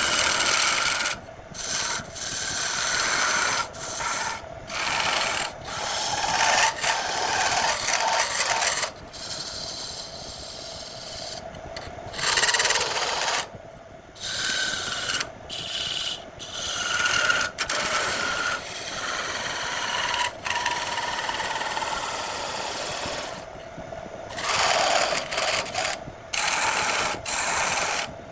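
A tool working against spinning wood on a wood lathe, a rasping scrape in passes of a second to several seconds broken by short breaks where the tool comes off the wood.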